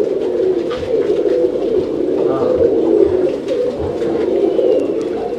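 Many domestic pigeons cooing at once, their low coos overlapping into a continuous steady chorus.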